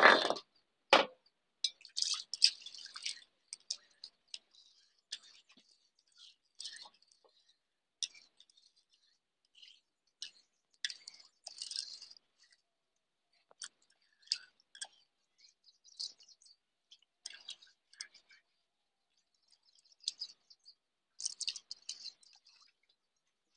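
Stone roller working on a scored stone grinding slab (sil-batta), grinding soaked rice into batter: two sharp knocks in the first second, then irregular short scrapes and clicks of stone on stone with pauses between strokes.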